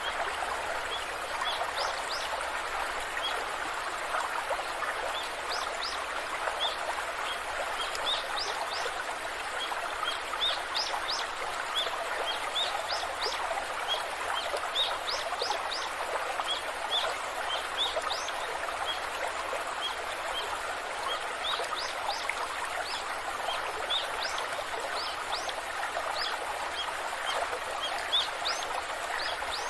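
Waterfall rushing with a steady, even sound of falling water, with frequent short, high bird chirps throughout.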